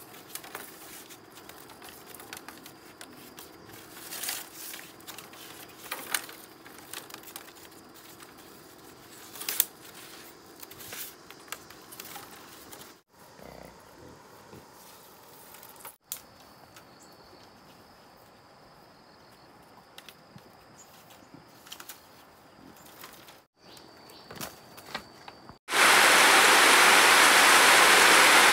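Scattered light clicks and knocks of split bamboo strips being handled and woven into a cage. Near the end, heavy rain pouring off a roof edge comes in as a loud, even rush, much the loudest sound.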